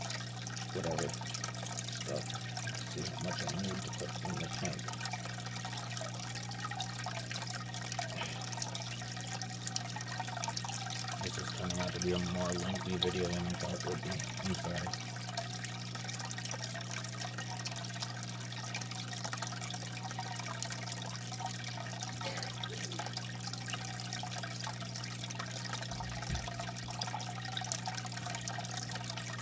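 Aquarium filter running: water trickling and splashing steadily over a steady low hum. It gets briefly louder about twelve seconds in.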